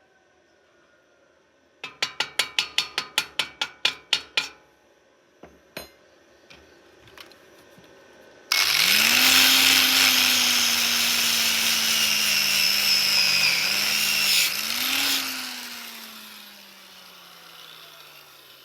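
A run of about a dozen quick, sharp hammer taps on metal. A few seconds later an angle grinder starts abruptly and grinds metal loudly for about six seconds, its motor pitch dipping briefly under load. Then it is switched off and winds down slowly.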